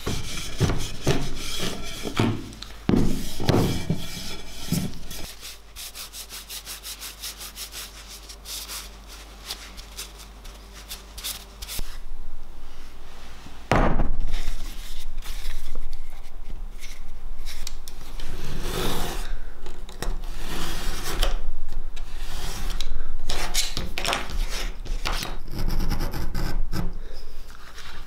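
Hand work on a layered leather sheath: rubbing and scraping strokes of a tool along the leather edges. A quieter stretch of quick light ticks comes in the middle, and there is a sharp knock about halfway through.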